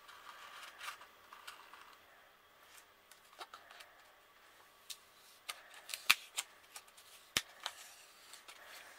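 Faint handling of a plastic phone battery pack being opened: a blade scraping at the casing seam and a paper wrapper being peeled off, with scattered light clicks. Two sharper clicks come about six and seven seconds in.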